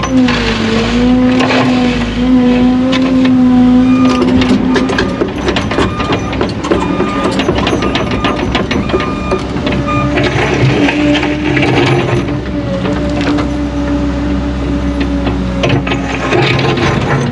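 Heavy construction machine running under load, its engine and hydraulics giving a steady droning whine that dips and rises slightly, with rock and gravel scraping and clattering throughout. A run of short, regular beeps sounds for several seconds in the middle.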